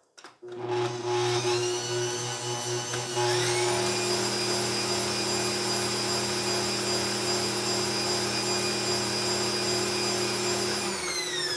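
Bosch Compact Kitchen Machine stand mixer motor starting up and whisking cake batter, stepping up to a higher speed about three seconds in and running steadily, then starting to wind down near the end.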